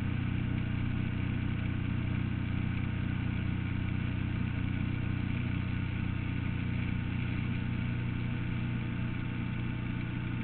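Can-Am Spyder three-wheeled motorcycle cruising at a steady speed on a wet road: a constant low engine drone with road noise, holding steady throughout.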